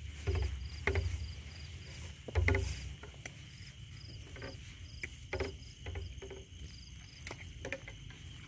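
Night insects calling steadily: a cricket's pulsing high chirp repeating about three times a second over a continuous higher buzz. Footsteps swish through grass, with dull thumps about one and two and a half seconds in.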